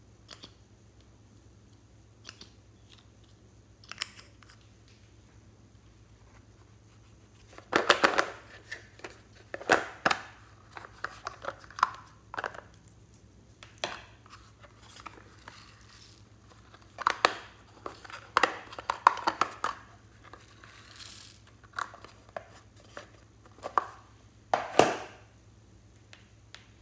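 Hands handling small plastic cosmetic containers, caps and a plastic case over a plastic bowl: scattered clicks and snaps, with louder bouts of rattling and crinkling about eight seconds in, again from about seventeen to twenty seconds, and near the end.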